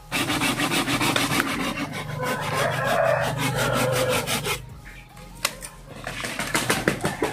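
Rapid, repeated scraping strokes on wood for about four and a half seconds, then quieter, with a few sharp knocks near the end.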